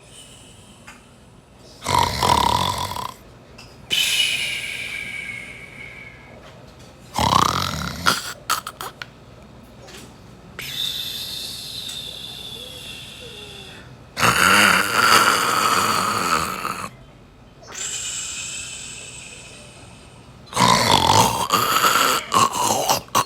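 Large orange cat snoring in its sleep: a loud snore about every six seconds, with a softer, higher, slightly whistling breath between.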